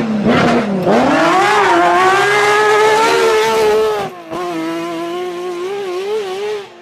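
Lancia Stratos HF Group 4 rally car's Ferrari Dino V6 at full race pace. The revs dip about a second in, then climb and hold high as the car pulls away. There is a short break about four seconds in, and the engine note then runs on slightly quieter.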